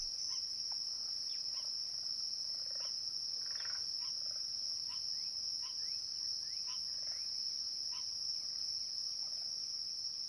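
A chorus of crickets trilling steadily and high-pitched, with short chirps scattered through it.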